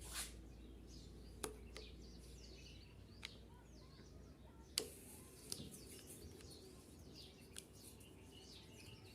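Faint bird chirps with a few small sharp clicks and taps from work on a motorcycle's plastic handlebar switch housing as it is opened; the loudest click comes about five seconds in.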